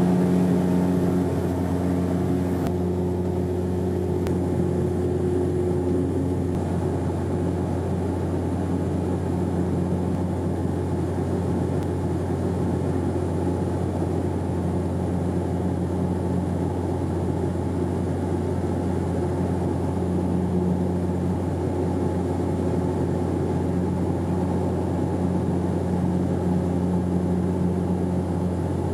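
Turboprop airliner cabin drone: the engines and propellers give a steady low hum with a constant tone, heard inside the cabin next to the propeller. A few higher tones in the drone fade out in the first several seconds.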